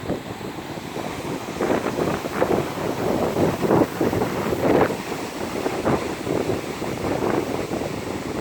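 Strong wind buffeting the microphone in irregular gusts over the rush of ocean surf at high tide; the buffeting grows stronger about a second and a half in.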